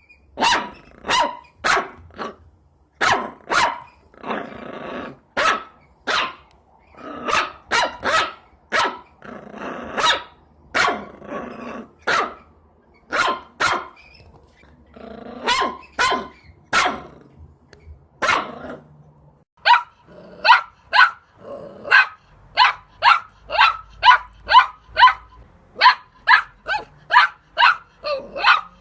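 Puppies barking in short, sharp, high-pitched yaps, with a few longer, rougher growling stretches between the barks. In the last third the barks come in a faster, even run of about two a second.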